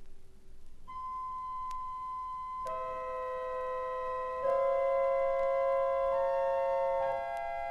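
The 1902 Wilhelm Sauer late-romantic pipe organ playing slow held chords. After a brief hush, a single high note enters about a second in. Lower notes join it, and the chord grows louder about halfway through, with a few faint clicks from the vinyl LP.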